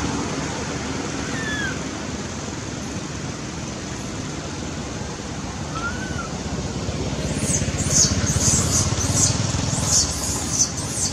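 Baby monkey crying in a run of short, very high-pitched squeals over the last few seconds, a frightened cry, over steady traffic noise.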